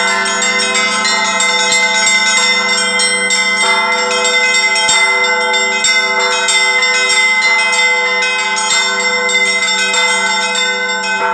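Russian Orthodox church bells ringing: many bells struck in quick succession, their tones ringing on and overlapping into a dense, steady peal.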